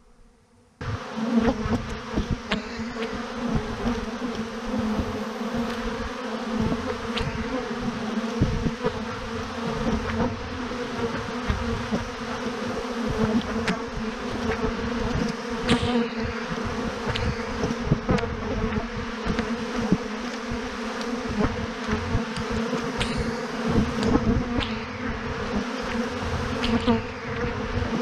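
A swarm of thousands of honeybees clustered on a branch, buzzing in a dense steady hum that starts about a second in. Irregular low thumps on the microphone run underneath.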